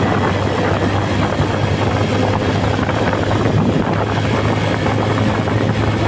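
Bajaj Pulsar LS135's single-cylinder engine running steadily at cruising speed, with wind rushing over the microphone.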